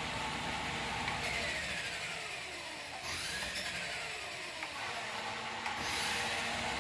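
Small electric motor of a remote-control toy whining, its pitch gliding down more than once as it slows.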